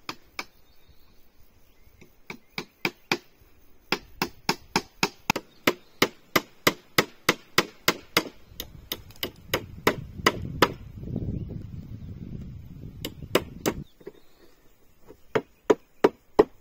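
A hand tool striking wood in rapid blows, about three a second, in bursts with short pauses. A low rumble runs under the blows in the second half.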